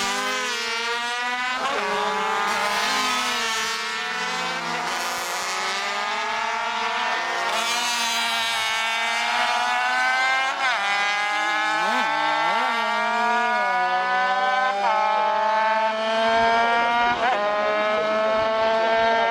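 Several 50cc racing motorcycles at full throttle, their small engines revving high. Each engine's pitch climbs steadily and drops sharply at each upshift as the bikes accelerate past and pull away.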